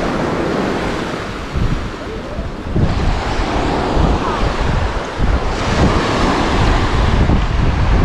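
Surf washing onto a sandy beach, swelling about three seconds in and again past halfway, with gusty wind rumbling on the microphone.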